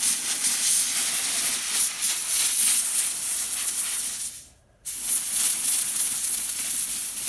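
Air eraser (pen-sized sandblaster) hissing steadily as it blasts abrasive grit onto the solder seams of a stained glass lampshade. The hiss cuts out for about half a second a little past the middle, then resumes. The blast scours the old solder down to bare gray metal so fresh solder will stick.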